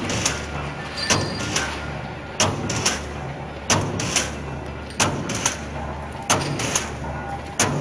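Heavy expanded metal machine, model JQ25-63, running: its upper blade comes down on the steel sheet about every 1.3 seconds, each stroke a double clank about half a second apart, over a steady low hum.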